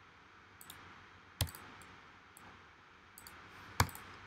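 Computer mouse clicks: two sharp clicks, about a second and a half in and near the end, with a few faint ticks between them.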